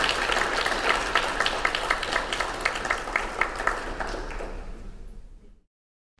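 Audience applauding, many hands clapping; the applause thins out and fades, then cuts off abruptly into silence near the end.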